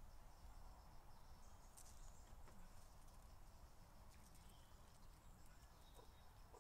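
Near silence: faint outdoor background with a low rumble and a few faint ticks.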